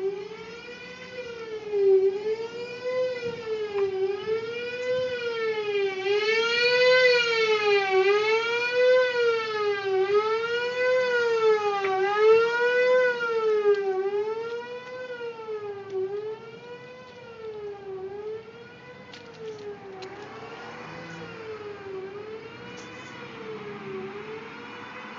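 Building fire alarm siren sounding a rapid wail, its pitch rising and falling about once a second. It is louder for the first half, then continues more faintly.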